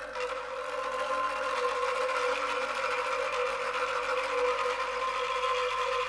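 Hanging bamboo tube chimes swept by hand: a dense, continuous clattering rattle of many small bamboo strikes, with held notes sounding steadily beneath it.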